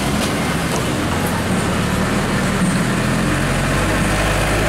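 Motor vehicle traffic: an engine running close by, a steady low hum under general road noise.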